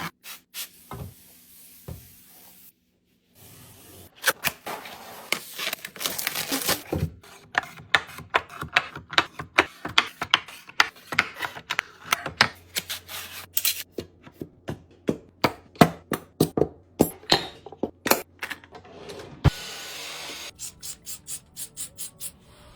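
Household items being handled and set down while restocking a kitchen: many sharp taps, clicks and knocks with rubbing and rustling between them. After a short pause about three seconds in, the taps come thick and fast, several a second.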